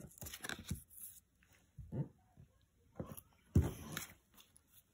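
Scattered light clicks, taps and a few soft thuds from a child handling a game card and a plastic Operation game board on a wooden table, the loudest thump about three and a half seconds in.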